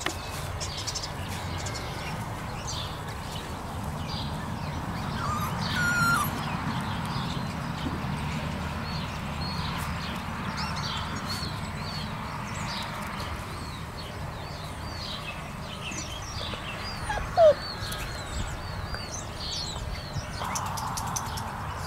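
Six-week-old puppies whimpering and yipping, with one short, sharp yelp about two-thirds of the way in.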